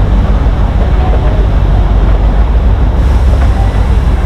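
Narrow-gauge toy train running, heard from aboard: a steady loud rumble with wind buffeting the microphone.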